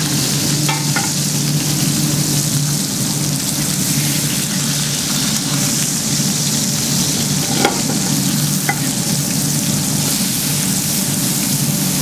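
Beef short ribs sizzling in hot fat in a frying pan, a steady frying hiss over a low steady hum. A few light clicks of tongs on metal come as the ribs are lifted out, about a second in and twice more past the middle.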